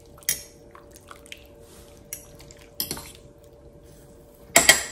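Utensils stirring shredded chicken in cream sauce inside a slow-cooker crock, giving a few sparse clinks and scrapes against the pot, with a louder clatter near the end.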